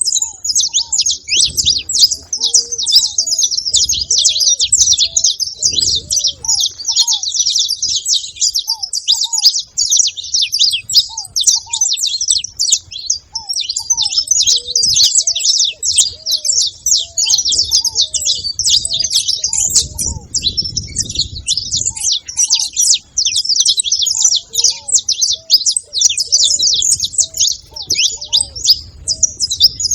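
Saffron finch (canário-da-terra) singing: a rapid, unbroken stream of high chirps and trills.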